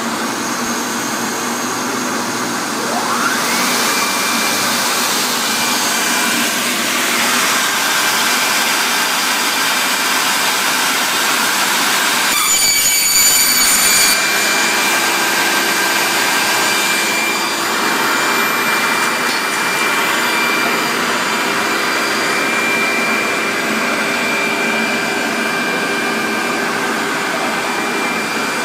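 Casadei Alu Bender edge-processing machine running as it mills and bends paper honeycomb board: a steady, loud machine noise with a high motor whine. The whine rises and then holds steady about three seconds in, and the sound changes briefly near the middle.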